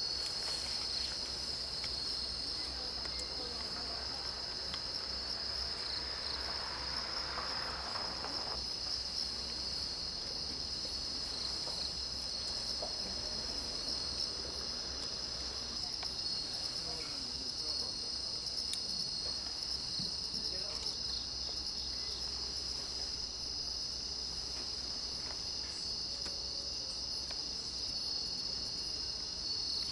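A steady chorus of insects, crickets among them, chirping in one continuous high-pitched band.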